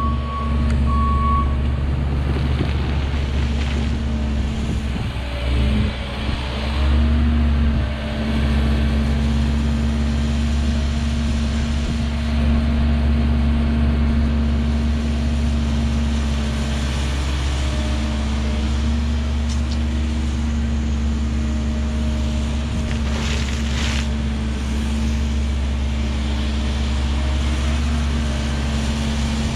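Heavy-equipment diesel engine running steadily under work, its note dipping and wavering briefly a few seconds in. A few short beeps sound at the very start, and a brief noisy burst comes about three-quarters of the way through.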